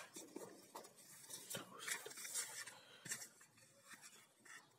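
Textbook pages being turned by hand: a series of faint paper rustles and light ticks, dying down near the end.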